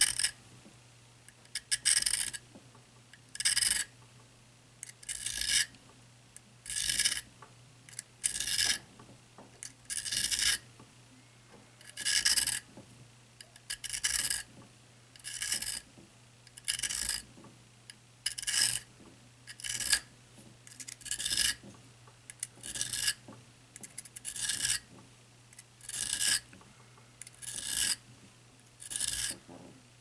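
Serrated edge of a Gerber pocket knife being honed on the tapered diamond rod of a Smith's Pocket Pal sharpener: about eighteen short metal rasping strokes, one every one and a half to two seconds.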